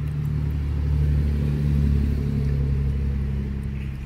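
A low engine hum, steady in pitch, swelling in the middle and easing off near the end.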